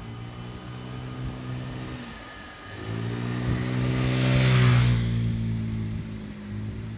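Motor scooter engine running as it approaches, growing louder and passing close by about four and a half seconds in with a rush of noise, then fading away.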